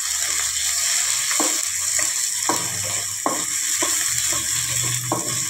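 Chopped onion, green chilli and tomato sizzling in hot oil in a steel kadhai, stirred with a wooden spatula that knocks and scrapes against the pan about once a second.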